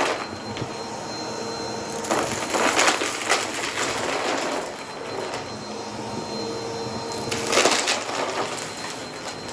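Vacuum cleaner running, its brushroll crunching and crackling through dry debris over a steady motor whine. The crunching swells twice, about two seconds in and again near the end.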